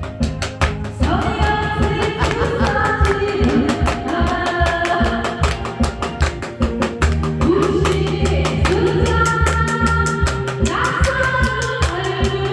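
Background music with a steady beat and singing voices, starting about a second in.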